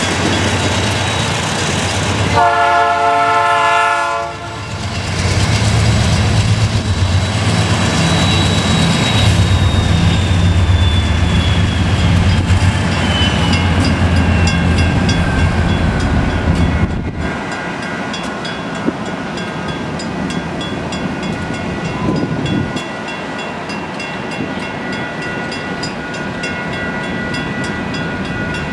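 Union Pacific GE C44-9W diesel locomotives passing: the lead unit sounds its horn once for about two seconds, then the engines run past with a heavy rumble. About 17 seconds in the engine sound drops away, leaving loaded rock hopper cars rolling over the rails and the rhythmic ringing of the grade-crossing bell.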